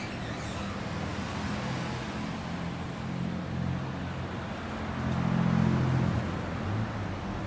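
Street traffic with a vehicle engine running close by, a steady low hum that grows louder about five seconds in and then eases.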